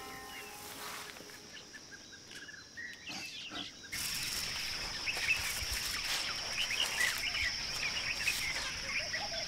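Forest ambience: a few scattered bird calls at first, then from about four seconds in a louder, steady high insect drone with many short bird chirps over it.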